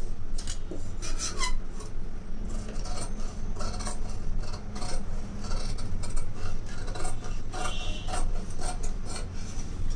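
Large tailoring scissors cutting through blouse fabric along a chalk-marked line: a run of irregular snips, with the blades rubbing and rasping along the cloth. A steady low hum runs underneath.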